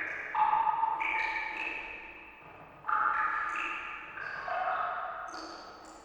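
Water drops falling into water, each a pitched plink at a different pitch with a long echoing tail, about six at irregular intervals.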